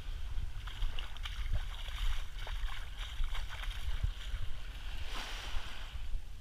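Small waves lapping on a sandy shoreline with a fizzing, crackling hiss, and a louder wash about five seconds in, under a low rumble of wind on the microphone.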